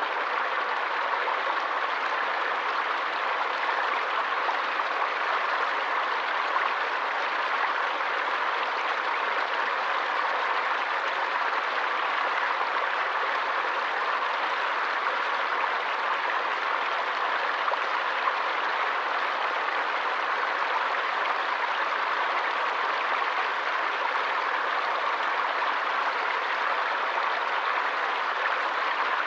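Forest stream flowing, a steady, even rush of running water.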